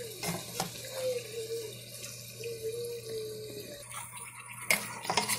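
Seasoned goat meat sizzling in hot oil in a cooking pot: a steady hiss. A few sharp clicks come near the start and again near the end.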